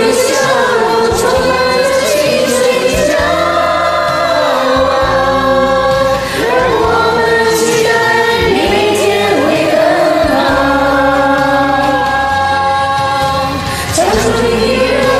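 Several amateur voices singing a Mandarin pop song together over a karaoke backing track, mixed into one group recording, with held notes and a steady bass line underneath.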